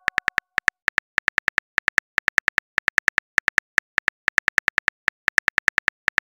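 Smartphone keyboard typing sound effect: rapid, evenly spaced clicks, about seven a second, in short runs with brief pauses between them.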